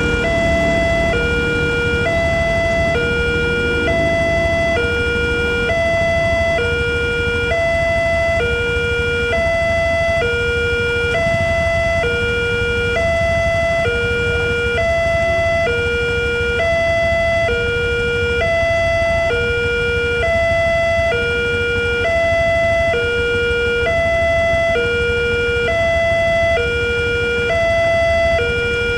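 Railway level-crossing warning alarm sounding a two-tone electronic signal, a low tone and a higher tone alternating about once a second. It is the warning that a train is approaching and the barriers are closed.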